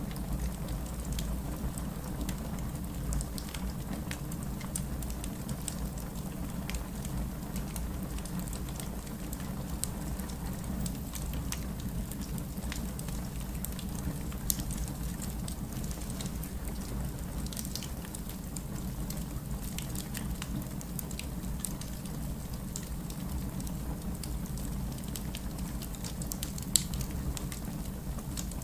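Wood fire crackling in a fireplace: frequent small crackles and snaps over a steady low rumble, with a louder pop about halfway through and another near the end.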